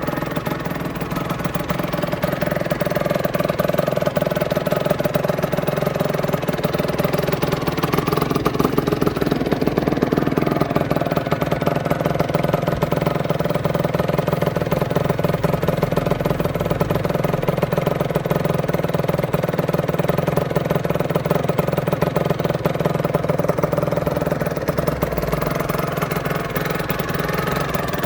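Aprilia RS125's single-cylinder two-stroke engine idling steadily, with slight shifts in pitch about ten seconds in and near the end.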